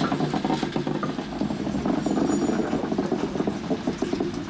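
Rail vehicle machinery running steadily during shunting, a low hum broken by a fast, even rattle.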